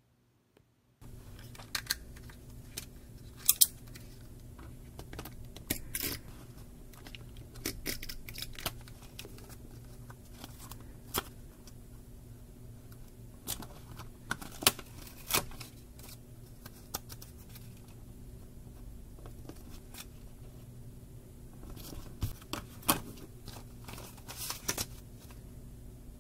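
Hands handling paper and stationery at a desk, starting about a second in: scattered sharp clicks, crinkling and rustling of paper as pages of a spiral-bound planner are worked on and pressed down, over a low steady hum.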